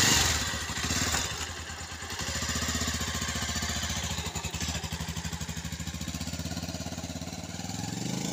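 Bajaj Pulsar 220's single-cylinder engine idling steadily just after starting, then rising in pitch near the end as the motorcycle pulls away.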